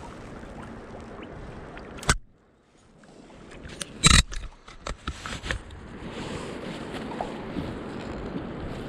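Water and wind around a kayak on a river, with a sharp click about two seconds in, a brief drop to near quiet, then a loud knock just after four seconds and a few lighter knocks after it.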